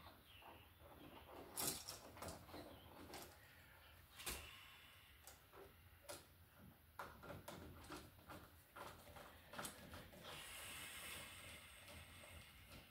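Faint scattered clicks and scrapes of a three-way wall switch and its wires being pushed into an electrical box and fastened with a hand screwdriver, with a soft hiss for about a second around ten seconds in.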